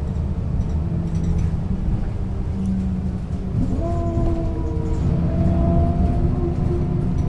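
Setra S 315 UL bus's diesel engine running under way, a steady low drone. About four seconds in, a steady whine at several pitches joins it.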